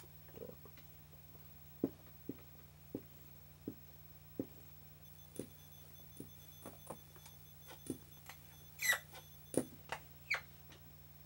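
Dry-erase marker squeaking and tapping on a whiteboard as letters are written: short, irregular taps, then a few louder squeaks that rise in pitch near the end. A low steady hum runs underneath.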